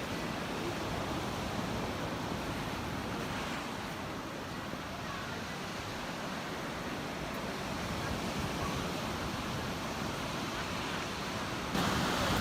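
Surf washing onto a beach, a steady rushing noise with some wind on the microphone; it turns abruptly louder near the end.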